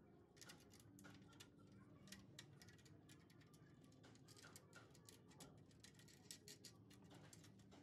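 Faint, irregular small clicks and taps of hands handling wooden dowel pegs and their metal wing nuts on a plywood cross bar, over a faint low room hum.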